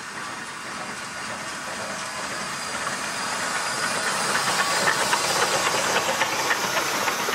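Amemiya No. 21, a 1928 forest-railway tank steam locomotive, running past with a steady steam hiss that grows louder to a peak about five seconds in. As it and its two passenger coaches go by, many short sharp clicks join the hiss.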